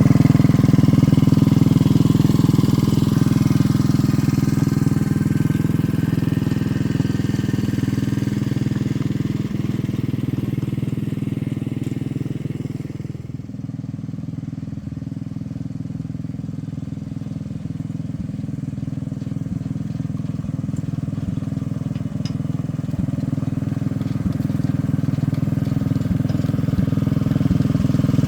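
Engine of a small rail vehicle running steadily. It grows fainter until about halfway through, then louder again.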